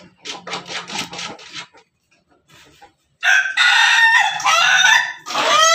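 Ayam ketawa (Indonesian laughing chicken) roosters: first a quick run of short clucking notes, then a loud crow about three seconds in. A second crow starts near the end and breaks into a rapid stuttering run of notes.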